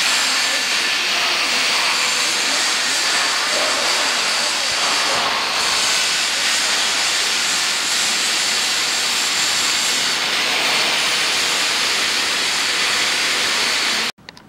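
A steady, even hiss that stops suddenly near the end.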